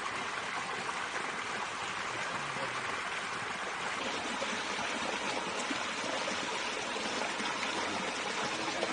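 Flowing water making a steady, even rush, like a small stream running through the wetland.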